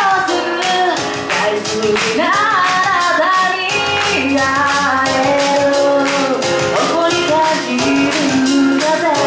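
A woman singing a pop song live into a handheld microphone over a backing track with a steady drum beat, amplified through the venue's PA.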